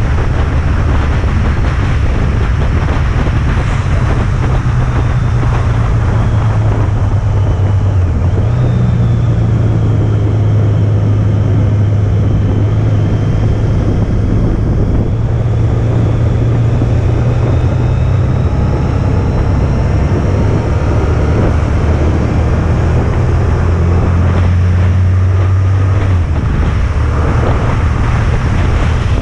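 Honda ST1300 Pan European's V4 engine running steadily at road speed, heard with wind and tyre noise on the bike-mounted camera. The engine note steps up about a quarter of the way in and changes again near the end.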